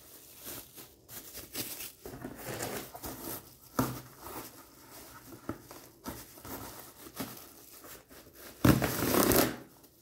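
Packaging being handled: soft crinkling and rustling with scattered small clicks, and one louder rustle near the end.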